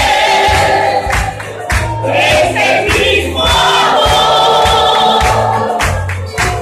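Congregation singing a worship song together, many voices at once over a low accompanying line.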